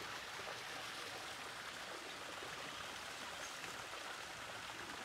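Steady rush of running water, an even hiss with no separate splashes or calls.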